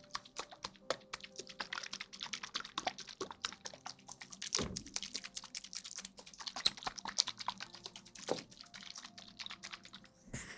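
Rapid, irregular clicking taps, several a second, with a few louder knocks about four and a half and eight seconds in.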